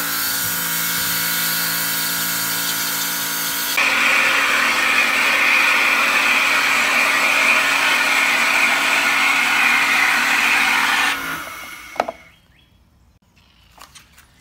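Electric pressure washer running, its motor-driven pump humming steadily while the yellow 15-degree tip sprays water into a plastic bucket through a hole in the lid. The spray grows louder about four seconds in. The spray and hum cut off about three seconds before the end, followed by a single click.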